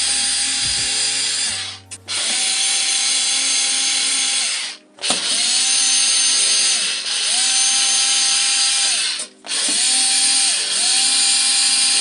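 Electric drill-driver running in long bursts of a few seconds, its motor whine rising as each run starts and falling as it stops, with short pauses about 2, 5 and 9.5 seconds in.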